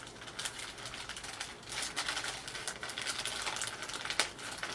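Packaging crinkling and rustling in irregular crackles and clicks as a mailed package is opened by hand.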